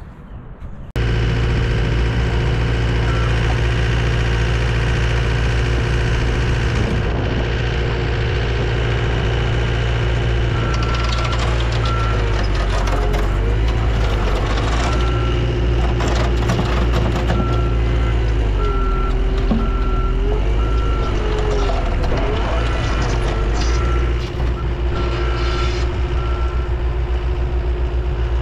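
Engines of a Mustang compact track loader and a skid steer running hard while the stuck track loader is pulled out of the mud, their pitch rising about a second in and wavering under load. A backup alarm beeps repeatedly from about ten seconds in until near the end.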